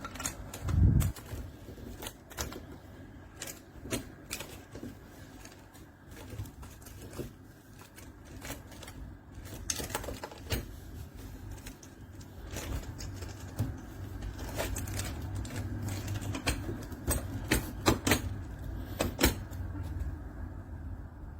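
Irregular clicks, taps and rattles of small hard objects being handled, over a low rumble. There is a louder knock about a second in and a denser run of clicks near the end.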